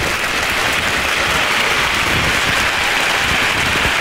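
Crowd applause: a steady, dense wash of clapping.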